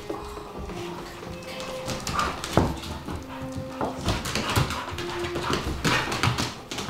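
Pit bull mother and her puppies playing: paws scrabbling on the tile floor, with irregular sharp knocks, the strongest about two and a half seconds in, and dog whimpering.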